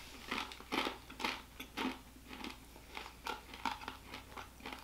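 Crunching of a mouthful of toasted whole soybeans and crunchy bits being chewed, a crisp crack roughly twice a second.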